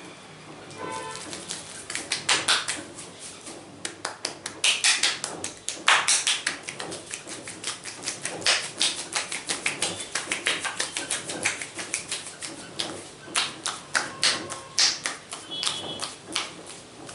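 Hands tapping rapidly on the head in an Indian head massage: a fast, uneven run of sharp taps, several a second, going on throughout.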